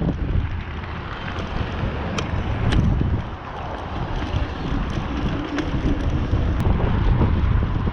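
Heavy wind buffeting the microphone during a bicycle ride, a steady low rumble with a few sharp clicks.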